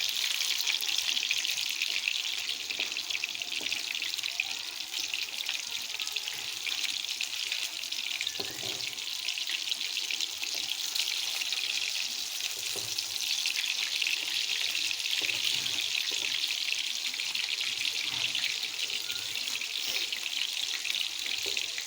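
Minced-meat kebabs frying in hot ghee in a pan: a steady, even sizzle.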